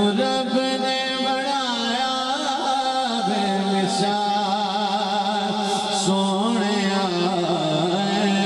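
A man singing a Punjabi naat into a handheld microphone, amplified through a public-address system, in long held notes with wavering melodic ornaments.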